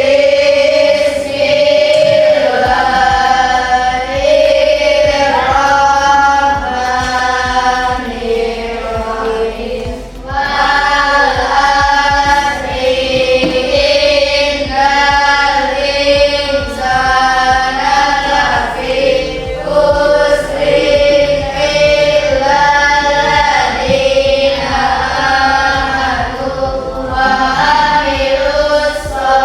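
A class of schoolchildren chanting a closing prayer together in unison, in long held, sung phrases with short pauses for breath.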